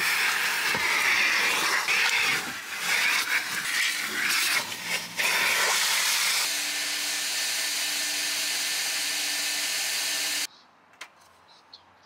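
Coin-operated car-wash vacuum running loud, its hose nozzle sucking at a car's interior with a rush of air that shifts as the nozzle moves, then steadies with a faint hum. The sound cuts off suddenly about ten seconds in, leaving a few faint clicks.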